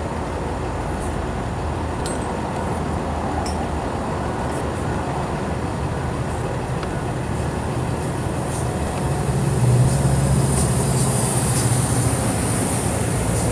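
Steady outdoor traffic and engine rumble, with a heavier low engine hum swelling in about nine seconds in and holding for a few seconds.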